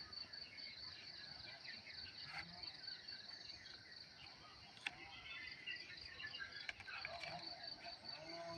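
Crickets chirping in a steady, fast high-pitched pulsing trill, with a few sharp clicks over it.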